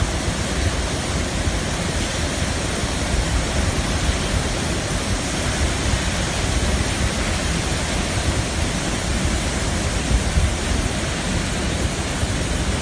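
Floodwater discharging from the Three Gorges Dam's spillway outlets: a loud, steady rushing roar of falling and churning water.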